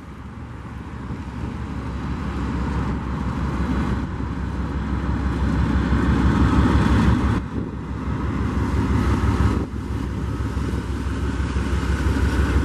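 Union Pacific diesel freight train passing below, a steady low rumble and engine drone that grows louder toward the middle and dips briefly twice.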